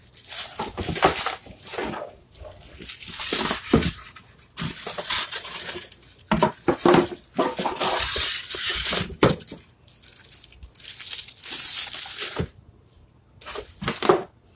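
Plastic wrapping crinkling and cardboard rustling as plastic-wrapped parts of a die-cutting machine kit are pulled out of their box, in irregular spells, with a few knocks.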